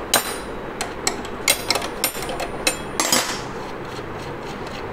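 Irregular sharp metal clicks and clinks as the nut on a motorcycle's rear brake-drum stopper (torque-arm) bolt is worked loose and taken off, with one longer, ringing clink about three seconds in.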